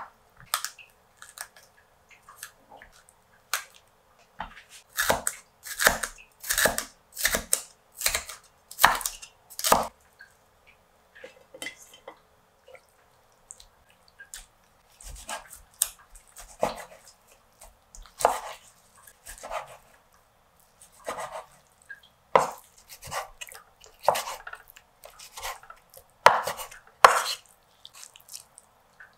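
Chinese cleaver chopping a green pepper on a thick wooden chopping board: sharp knocks of the blade on the board, about two a second for several seconds. After that come sparser, irregular knife cuts and taps as raw chicken breast is cut on the board.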